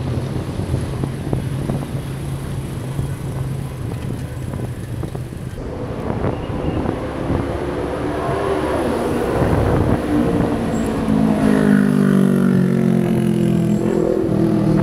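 Road traffic heard from a moving bicycle: wind rush and tyre noise with a motor vehicle's engine growing louder in the second half as it passes close by.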